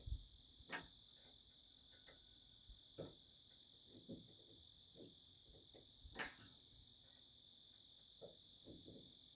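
Crickets trilling steadily in the background, high-pitched and faint. Two sharp clicks, about a second in and about six seconds in, and a few faint taps from small hand-tool work on the door handle.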